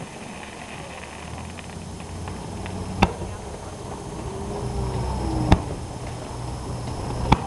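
Aerial firework shells bursting: three sharp bangs, about three seconds in, at five and a half seconds, and just before the end, over a steady low rumble.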